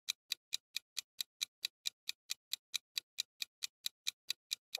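Countdown timer sound effect: steady clock-like ticking, about four and a half ticks a second, counting down the time to answer.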